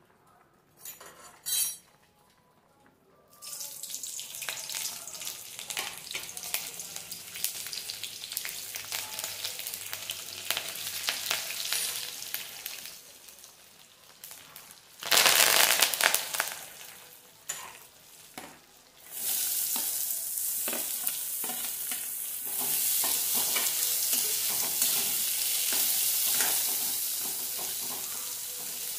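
Hot oil in a kadhai sizzling as the tempering goes in. It starts about three seconds in, flares into a loud burst of spluttering about halfway through when curry leaves hit the oil, then settles into a steady louder sizzle of chopped onions frying while a steel spoon stirs them.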